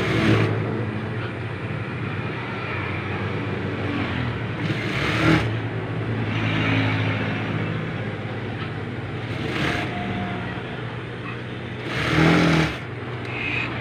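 Juki industrial sewing machine's motor humming steadily, with brief louder bursts about five seconds and twelve seconds in.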